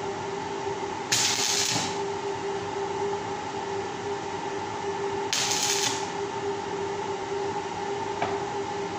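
Stick (arc) welding on a round steel grill grate: two short bursts of arc noise, under a second each, about a second in and again about five seconds in, as the bars are tack-welded. A steady hum runs underneath.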